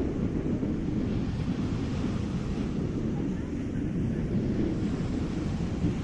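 Wind buffeting the microphone over the wash of small waves on the shore, a steady low rumble.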